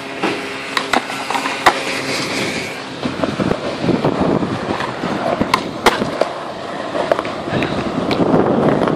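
Skateboard wheels rolling over concrete, with sharp clacks of boards hitting the ground now and then. The rolling gets louder from about three seconds in.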